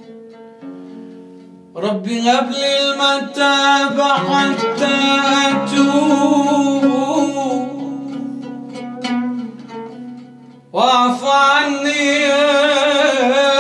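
Arabic devotional song (nasheed) music: soft plucked-string notes, then about two seconds in the full music enters loudly with a wavering sung line. It falls back briefly about ten seconds in, then returns at full strength.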